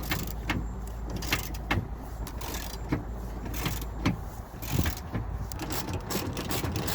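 A wrench working tight 10 mm bolts on a door's window regulator rail gives irregular sharp metal clicks and knocks, which come faster near the end. The bolts are coming off hard, perhaps held by thread-locker.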